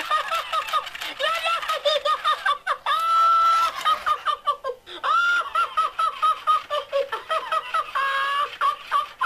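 Tickle Me Elmo TMX toy laughing hard in its high-pitched recorded Elmo voice, in rapid choppy bursts, with one long held squeal about three seconds in and a shorter one near the end.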